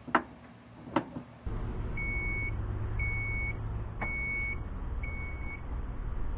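Two sharp clicks about a second apart, then a Chrysler Town & Country's power liftgate closing: four short, high warning beeps about one per second over a low steady rumble.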